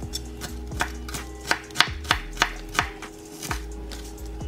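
Chef's knife chopping green bell pepper on a plastic cutting mat over a wooden board: a run of sharp knocks, about two to three a second and unevenly spaced.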